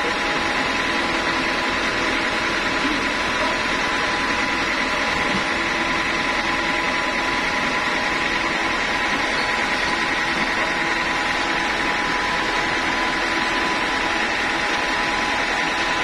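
Band sawmill running steadily without cutting, a constant mechanical hum with a high whine from the machinery while the log is positioned.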